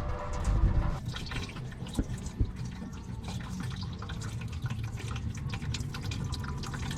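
Engine coolant draining out of the radiator, splashing and dripping irregularly.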